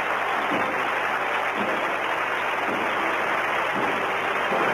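Large crowd cheering and clapping in a dense, steady roar, with a faint low thump about once a second.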